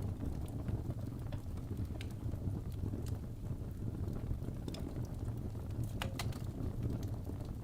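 Fireplace fire burning: a steady low rumble of flames with scattered faint crackles and a sharper pop about six seconds in.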